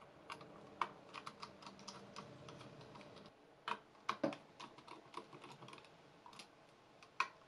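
Small screwdriver driving a screw into the plastic underside of a Corsair M65 mouse: faint, irregular light ticks and clicks of the tool bit and the plastic shell, with a few louder knocks about halfway through and near the end.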